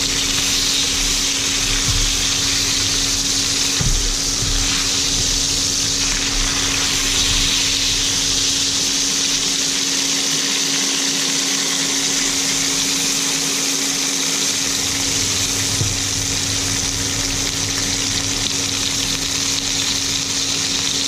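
Bacon-wrapped eye fillet steaks sizzling in hot rosemary-and-garlic butter in a pan, a steady frying hiss, as they are turned onto their sides with tongs. A steady low hum sits underneath.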